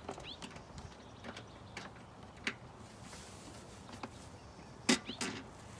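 Scattered clicks and light knocks of hand tools and plastic intake parts being handled in the engine bay, with a sharper knock about five seconds in and a couple of short squeaks.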